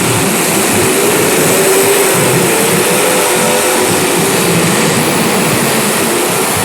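Engines of small racing cars running on track in a pack, with one engine's pitch rising and falling as it passes through the turns.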